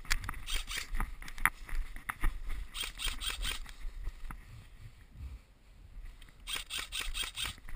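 Airsoft guns firing two short bursts of rapid clicks, one about three seconds in and one near the end. Between the bursts there is low rustling and handling noise from the player moving through the grass.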